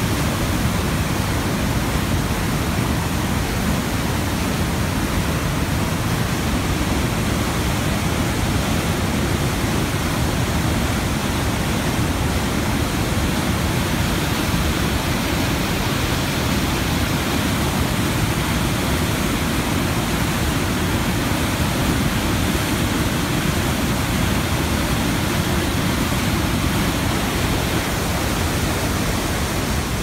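Waterfall in rainy-season flood: muddy water pouring over a wide rock ledge and churning in the rapids below, a steady, loud rush of water.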